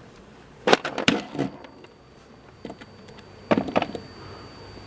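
A few sharp knocks and clicks of cabinet hardware being worked loose by hand, in two short clusters about a second in and again near the end.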